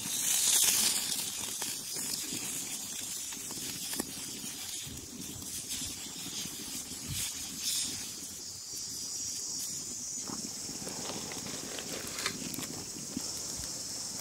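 Dosa sizzling on a hot tava: a steady hiss, loudest in the first second, with a few faint ticks scattered through it.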